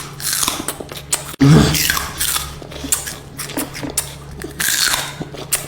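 Crunchy food being bitten and chewed close to the microphone, in a series of loud, irregular crunches.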